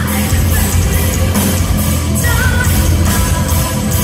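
Heavy metal band playing live, loud: distorted guitars, bass, and drums with cymbal hits, and a woman singing over them.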